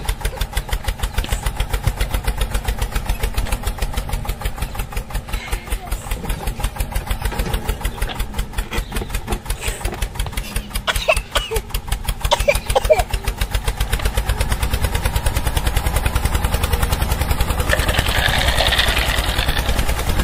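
An engine running steadily at a slow idle, chugging about five or six times a second. Short voices break in around eleven to thirteen seconds in.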